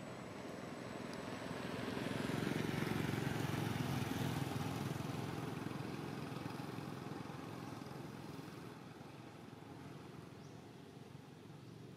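A motor vehicle passing by on the road, its noise swelling to a peak about three seconds in and fading away slowly.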